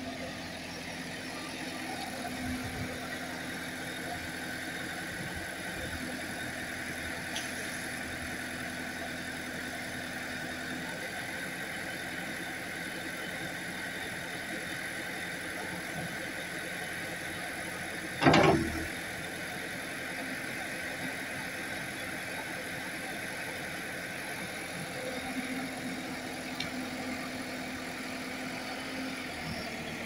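JCB 3CX backhoe loader's diesel engine running steadily while the rear backhoe arm is swung out and back on its hydraulics. A single loud clunk about two-thirds of the way through.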